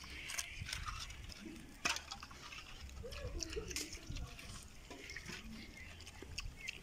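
A pig eating banana out of a metal bowl of water: wet slurping and chewing, with short clicks and clinks against the bowl.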